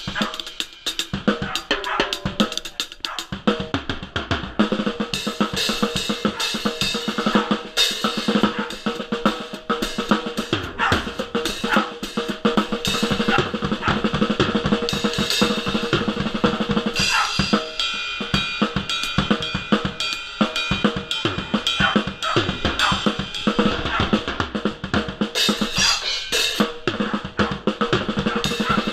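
A drum kit played in a continuous beat, with bass drum, snare and cymbals.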